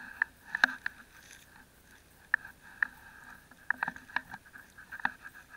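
Handling of a wet nylon fishing net and its float rope: irregular sharp clicks and crackles, a dozen or so spread unevenly.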